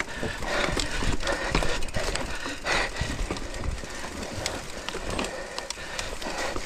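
Mountain bike riding over a rough trail: an irregular clatter of sharp knocks and rattles from the tyres and bike over rocks and ruts, over a steady rushing noise.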